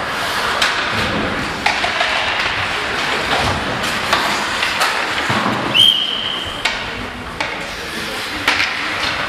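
Ice hockey play in an arena: sharp clacks of sticks and puck every second or so over a constant din. About six seconds in a referee's whistle blows once, a steady high tone lasting under a second.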